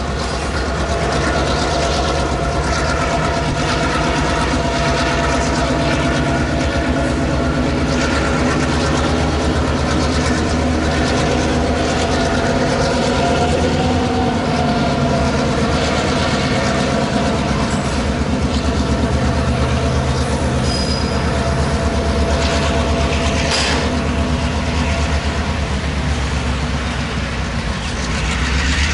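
Diesel locomotive running steadily as it hauls a train of covered hopper cars past, with the rumble and clatter of the cars rolling on the rails.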